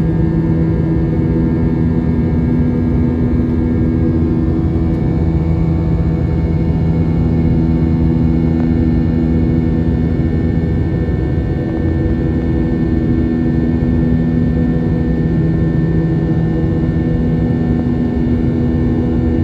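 Steady cabin drone of an Airbus A320 airliner in flight, heard inside the cabin at a window seat: jet engine and airflow noise with a constant low hum of several fixed tones.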